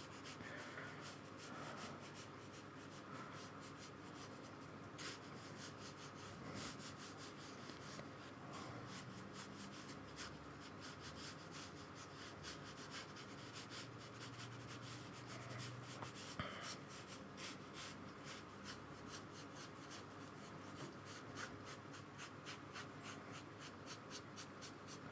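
Paintbrush strokes on paper, faint and scratchy, with many short brushing and dabbing strokes laying in paint.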